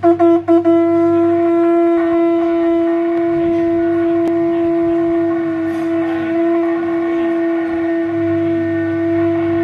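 Conch shell (shankh) blown by mouth: a few short blasts, then one long, steady held note.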